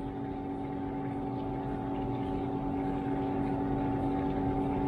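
Washtech UL undercounter commercial dishwasher running mid-cycle: a steady motor hum with a rushing noise of water inside the machine, growing slightly louder.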